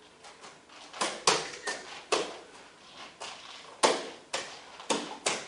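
Irregular sharp knocks and thuds, about eight in a few seconds, with the loudest about a second in and near four seconds in: bare feet shifting and stepping on a dojo floor between karate drills.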